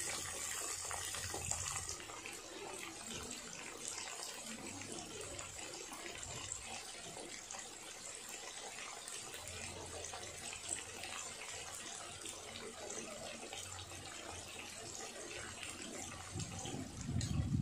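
Eggplant pieces deep-frying in hot oil on high flame: a steady bubbling sizzle with fine crackles as the pieces cook down and shrink. A louder low handling noise starts near the end.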